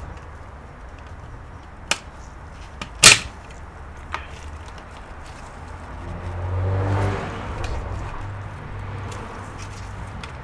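Plastic snap-fit clips of an ARRIS cable modem's case clicking and cracking loose as the case is pried apart: a sharp click about two seconds in, the loudest crack a second later, then a small click. A longer, lower sound follows around seven seconds in.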